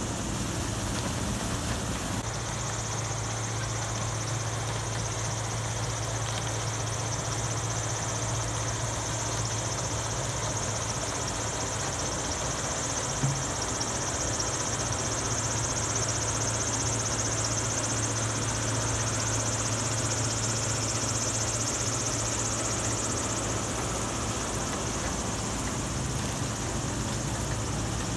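Steady motor noise: a low hum under a high-pitched whine, running evenly throughout, with one small tick about halfway.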